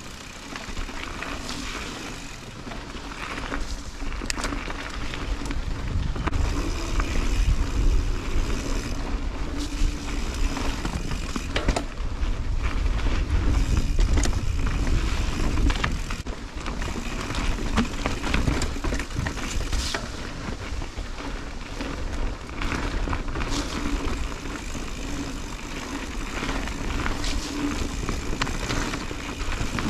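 2021 Santa Cruz 5010 mountain bike ridden along a dirt trail: tyres rolling over dirt and rock, with frequent sharp knocks and rattles from the bike over bumps. A heavy low rumble of wind on the microphone swells through the middle stretch.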